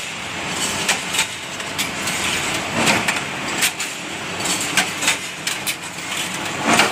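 Paper tube rolling machine running: a steady mechanical clatter with sharp clacks about once a second.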